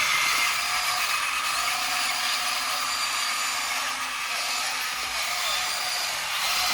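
Remote-control toy excavator's small electric motors and gears whirring, with whines that start and stop in short runs as its functions are worked.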